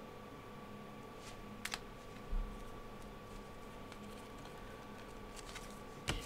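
Faint handling of trading cards: a few light clicks and taps as cards are sorted and set down, with one dull bump a little over two seconds in, over a steady faint electrical hum.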